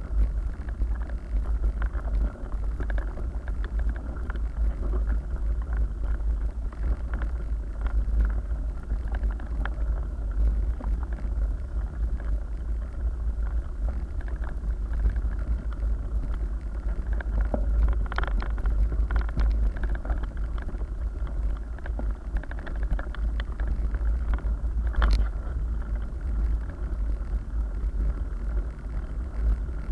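Steady low rumble of a mountain bike riding over a rough gravel track, from tyre and frame vibration and wind on the microphone, with scattered rattles and clicks from the bike and a sharper knock after about 25 seconds.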